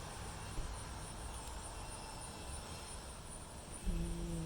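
Low background noise with a faint, steady, high-pitched pulsing chirr. Near the end a man's voice starts a long, steady hum.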